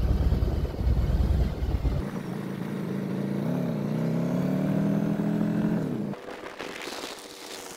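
Harley-Davidson Road Glide Special's V-twin engine running on the road, with heavy wind rumble on the microphone for the first two seconds. After that the engine note is clear and steady, rising slightly in pitch, then stops abruptly about six seconds in.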